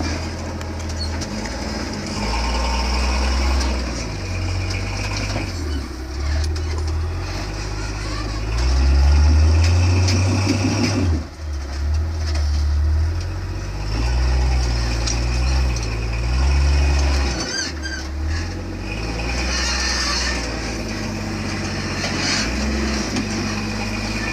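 Off-road Jeep engine working under load on a rock climb, revving up and falling back again and again, with its loudest surges about a third and two-thirds of the way through.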